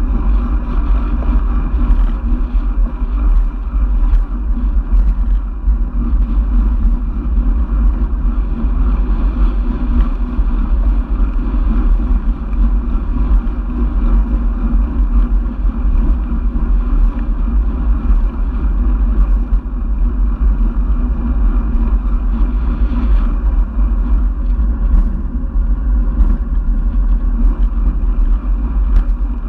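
Steady low rumble of wind buffeting and road noise picked up by a handlebar-mounted camera on a moving road bike, with scattered faint clicks.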